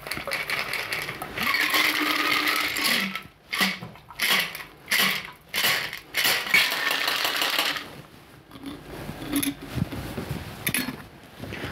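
Metal cocktail shaker with ice being poured out through a strainer and a fine-mesh sieve: ice rattling and liquid running in the tin, with a run of about four short sharp shakes of the tin in the middle to get out the last drops. A light clink near the end as the shaker is set down.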